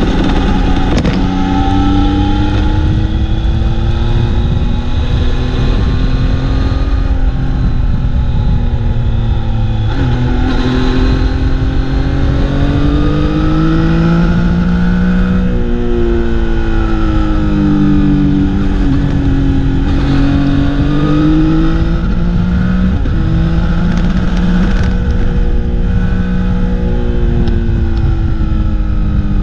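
Motorcycle engine running on the move, heard on board. Its pitch climbs and falls as the bike accelerates, shifts and eases off, with sudden drops about ten seconds in and again around fifteen seconds. Steady wind and road rumble run underneath.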